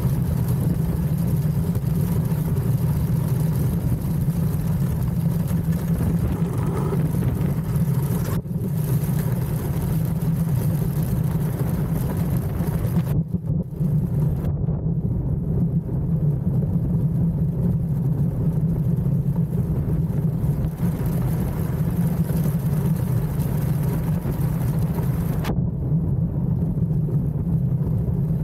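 DN-class iceboat running fast over the ice: a steady low rumble from its steel runners with a noisy hiss over it.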